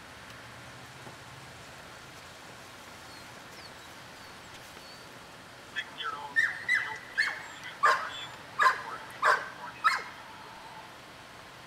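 A dog barking: a quick run of short, high, sharp barks lasting about four seconds, starting around the middle.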